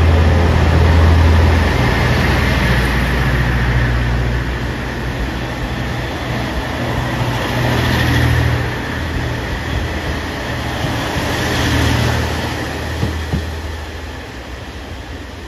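KiHa 40/47 series diesel railcar pulling out: its diesel engine runs under power with a deep steady rumble, along with the noise of the train rolling past, fading near the end as it moves away.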